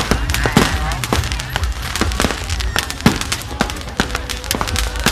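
Fireworks going off: many sharp cracks and pops in quick succession over a low rumble, with a louder single bang about three seconds in.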